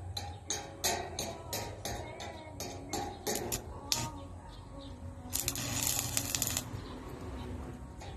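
Stick (arc) welding on a metal post: a string of sharp crackling snaps as the electrode is struck and the arc catches and breaks, about three a second for the first four seconds, then a steady crackling arc for about a second and a half that stops suddenly.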